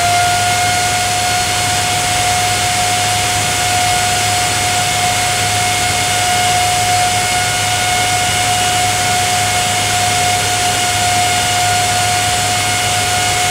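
Sanyo Denki 9GV5748P5H09 48 V brushless fan running at about 6,100 RPM: a loud, steady whine over a rush of air.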